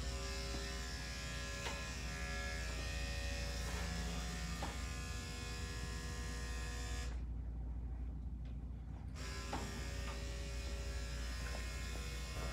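Corded electric dog clippers running with a steady buzz, shaving a Yorkie puppy's matted coat down short. The higher part of the buzz drops away for about two seconds around the middle, then comes back.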